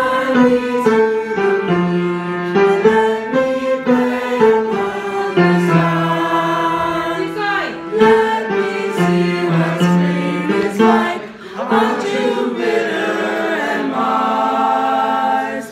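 A group of voices singing in harmony as a choir, moving from note to note and holding long notes. The singing ends on a long held chord that cuts off at the end.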